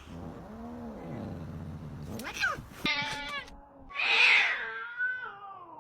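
A cat meowing and yowling in a string of drawn-out calls. It starts with a low, arching moan, moves to higher calls, and ends on a long call that falls in pitch.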